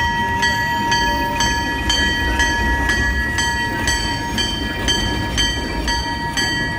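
Diesel locomotive passing close: a bell rings in even strokes about twice a second over the low rumble of the engine, with a steady high tone underneath.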